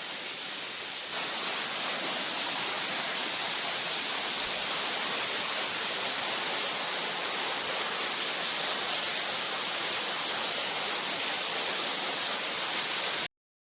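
Waterfall rushing steadily, a continuous water roar. It jumps louder about a second in and cuts off abruptly near the end.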